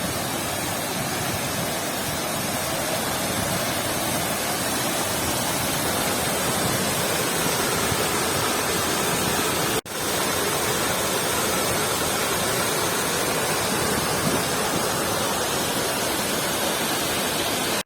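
Steady rushing of a muddy mountain waterfall. The sound cuts out for an instant just before the middle.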